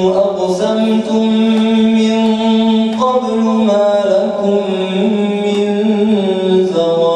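Men's voices chanting Arabic religious verse in the tawashih style, with long held, ornamented notes that slide to a new pitch every second or two.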